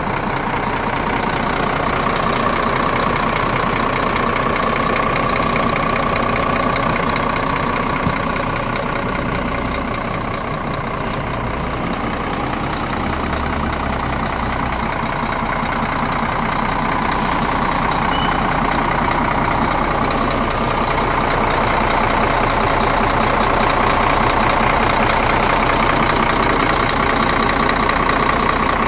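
Scania P410 tractor unit's diesel engine idling steadily.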